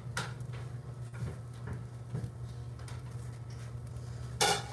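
Light clicks and taps of kitchen dishes and utensils being handled over a steady low hum, with a loud clatter near the end.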